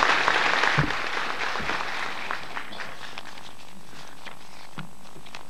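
Audience applause: dense clapping at first that thins out over the first two or three seconds into a few scattered claps.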